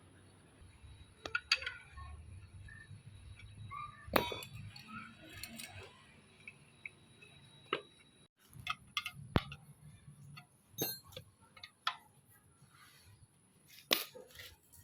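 Scattered metallic clinks and knocks, several ringing briefly, as tools and metal engine parts are handled during reassembly, over a faint low hum that stops about eight seconds in.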